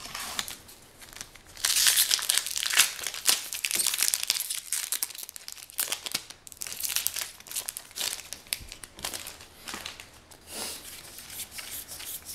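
Foil wrapper of a Magic: The Gathering booster pack being torn open and crinkled, loudest from about two seconds in for a couple of seconds, then softer crinkling and rustle for the rest.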